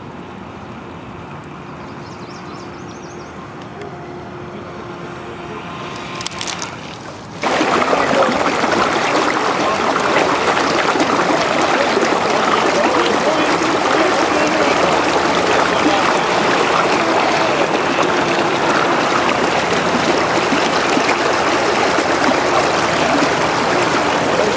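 Shallow river rapids rushing loudly and steadily, cutting in suddenly about seven seconds in after a quieter stretch of faint river sound.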